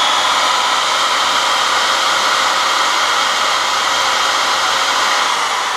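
Corded electric drill running steadily at speed, spinning an aluminum arrow footing in its chuck while its end is sanded flat and square against a hand-held abrasive.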